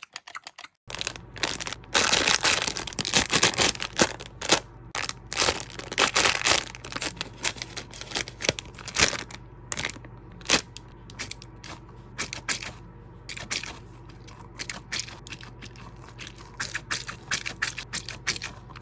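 Close-up crunching and crackling of food being bitten and chewed: many sharp crackles in quick succession, densest in the first few seconds and sparser later, over a low steady hum.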